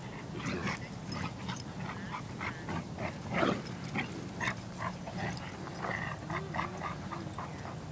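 Two dogs, a golden retriever and a pit bull, making short play growls and whines as they tug on a rubber toy, with one louder sound about three and a half seconds in.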